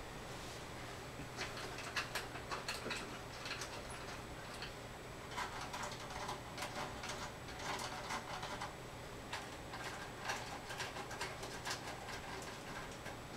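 Irregular light clicks and taps of hardware being handled, in clusters, over a steady low hum.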